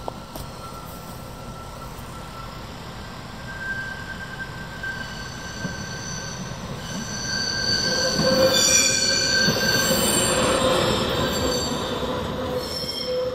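St-Bernard Express regional electric train passing close by, with a rumble and high, steady metal-on-metal squealing from its wheels. The sound grows louder and is loudest about two thirds of the way through as the train goes past.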